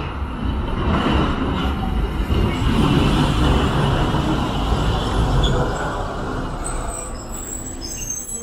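Hiroshima Electric Railway 700-series tram running past close by as it pulls into the stop, its wheels and running gear rumbling, loudest a few seconds in and then easing off. Thin high squealing tones come in near the end.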